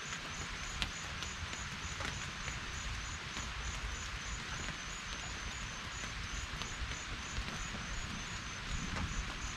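Outdoor summer ambience among trees: a steady high hiss of insects, with one insect call pulsing about three times a second, over a low rumble.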